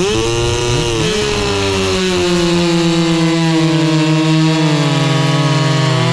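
Two-stroke chainsaw revved up and held at full throttle, its high pitch slowly sinking over several seconds, then let off right at the end.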